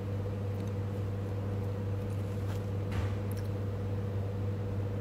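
Steady low electrical-sounding hum in a small room, with a faint click about three seconds in.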